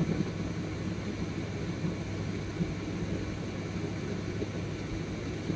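Steady low hum with an even hiss: constant room background noise, with a few faint small ticks.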